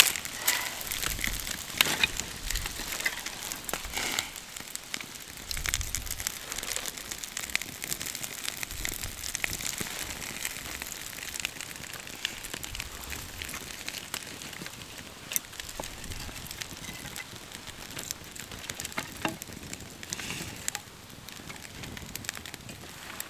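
Small fire of birch bark and split dry kindling crackling as it catches, with irregular sharp pops. Wooden kindling sticks knock and clatter as they are laid on the flames.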